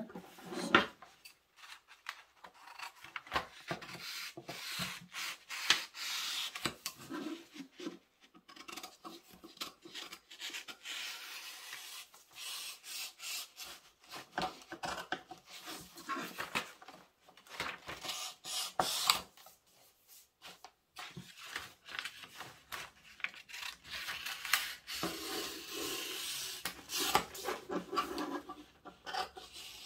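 Large tailor's shears cutting through sheets of pattern paper along a curved line, with snips, crinkling and the paper rubbing and sliding on the table. The cutting comes in irregular spells with short pauses.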